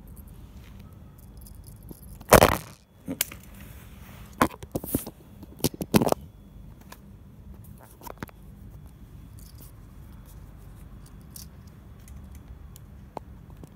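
Close handling noise on the phone: a few sharp knocks and rustles right at the microphone, the loudest about two seconds in and a cluster over the next few seconds, then only an odd one later.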